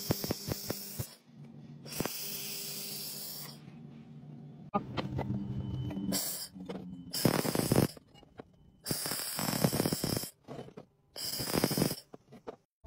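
Handheld laser welder firing in repeated bursts of hissing, each one to one and a half seconds long with quiet gaps between, and a few sharp clicks in the first second.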